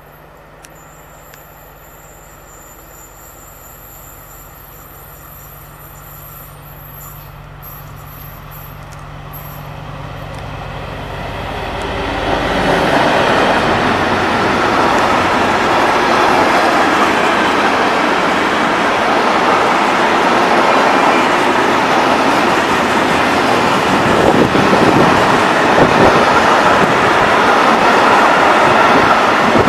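DB class 225 diesel-hydraulic locomotive approaching, its engine drone growing steadily louder until it passes about twelve seconds in. A long train of empty flat wagons then rolls by with loud, steady wheel and rattling noise.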